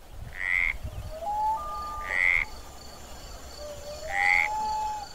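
Three loud croaking animal calls about two seconds apart, over a faint high chirping that repeats steadily.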